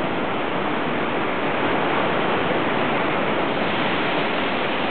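Steady rushing wash of ocean surf, an even hiss without separate waves or splashes standing out.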